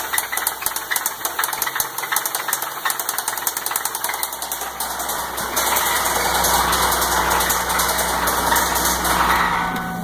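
2002 Ford Taurus 3.0 L 24-valve DOHC V6 running with a loud, rapid rapping knock, the sign of a bad engine; the noise seems to come from the top end of the rear bank, nearest the firewall. About halfway through it becomes steadier and a little louder.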